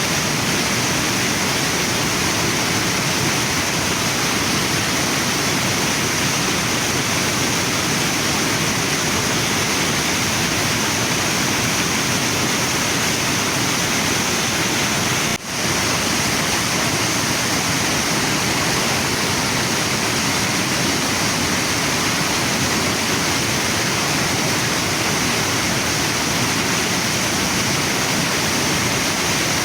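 Waterfall and river water rushing in a steady, unbroken roar, with a split-second dropout about halfway through.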